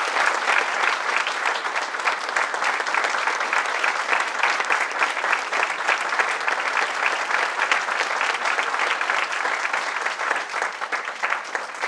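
An audience applauding, with many hands clapping steadily, easing off slightly near the end.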